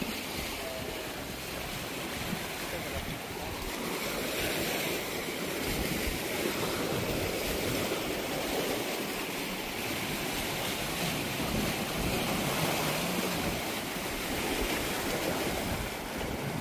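Sea waves washing in, a steady surging wash, with wind buffeting the microphone.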